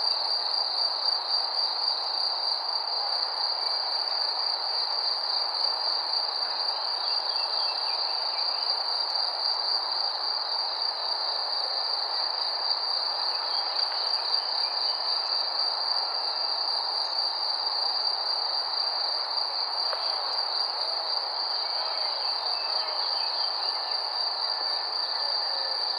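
Crickets chirping: a continuous high, rapidly pulsing trill over a steady background of night ambience.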